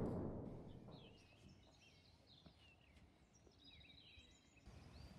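Faint birdsong: quick chirps and short whistled notes over a quiet outdoor hush, after the fading tail of a louder sound in the first second.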